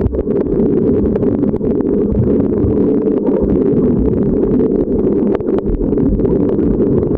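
Muffled underwater sound picked up by a camera submerged in a waterproof housing: a steady low rumble of moving water with scattered small clicks and crackles.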